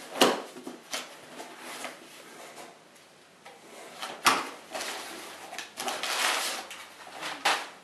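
Cardboard shipping box being opened by hand: flaps pulled back and crinkled packing paper rustled inside, with three sharp knocks of cardboard handling.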